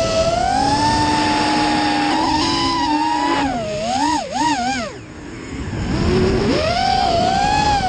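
FPV racing quadcopter's brushless motors and propellers whining under throttle, with air rushing past. The pitch climbs at the start and holds high, warbles quickly up and down about four seconds in, drops off about five seconds in as the throttle is cut, and climbs again after six seconds.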